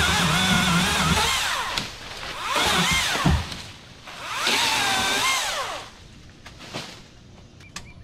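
Chainsaw running in three bursts of one to two seconds each, its pitch rising and falling within each burst.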